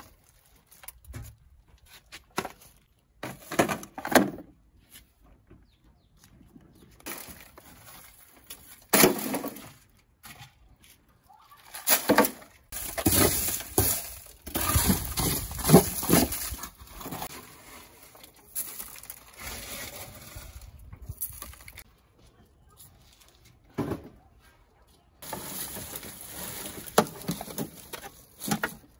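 Broken glass fragments and dry leaves clinking and rustling as they are raked and scooped off a rusted car floor pan. The sound comes in irregular spells with pauses, busiest in the middle.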